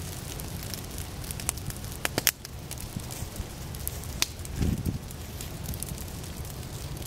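Low prairie fire burning through leaf litter and dry forb stems, crackling with scattered sharp pops, the loudest about two seconds in and again just after four seconds.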